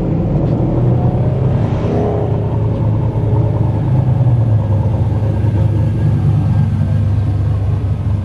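Modified sports car's engine running loud with a deep, steady rumble as the car drives slowly by.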